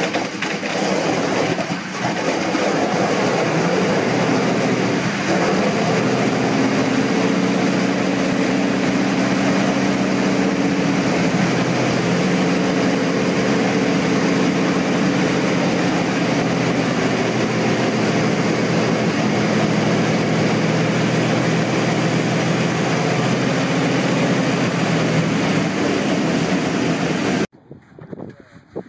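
Pratt & Whitney R-4360 Wasp Major 28-cylinder radial engine from a Convair B-36, running on a test stand with its propeller turning. It is a loud, dense drone, uneven for the first few seconds and then settling into a steadier pitched note. It cuts off abruptly near the end.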